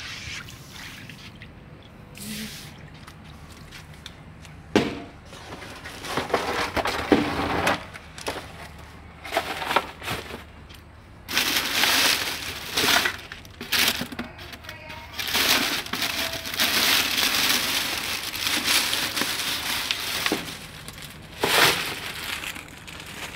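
Plastic bags rustling and crinkling as they are handled, densest and longest in the second half, with a sharp knock about five seconds in.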